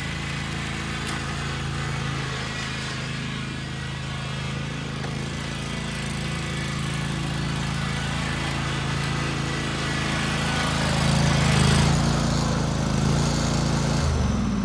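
1996 John Deere riding mower's Kawasaki OHV V-twin engine running steadily, a little louder about three-quarters of the way through. Near the end its pitch drops and it winds down as it is shut off.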